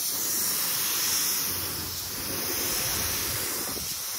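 Compressed-air paint spray gun hissing steadily as it sprays primer.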